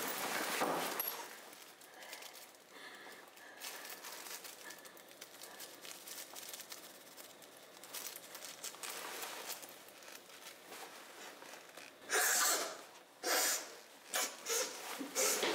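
A person sniffing hard through the nose, about four sharp snorts in the last few seconds, the first one the longest. Faint rustling and handling come before them.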